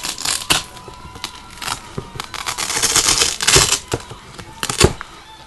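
The hook-and-loop midfoot strap of a Nike Zoom KD 4 sneaker being peeled back while the shoe is handled up close: several scratchy ripping and rustling bursts, the longest near the middle.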